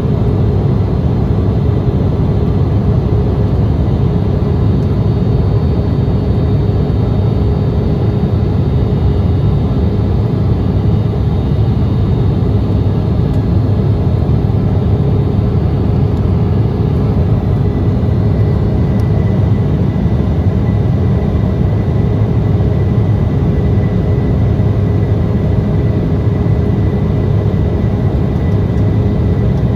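Steady cabin drone inside an Embraer E170 airliner in flight, from its wing-mounted GE CF34 turbofans and the air rushing past the fuselage. A low rumble runs under a steady hum, and a faint high whine grows clearer about halfway.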